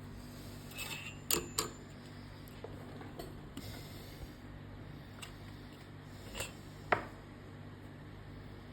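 A few sharp clicks and light taps of small hard objects being handled: two close together about a second in, and a louder single click near the end, over a steady low hum.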